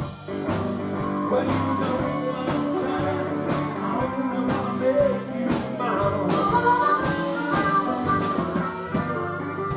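Live blues band playing, with drum kit, electric guitar and acoustic guitar. The drums keep a steady beat of about two hits a second, and a lead line comes in about six seconds in.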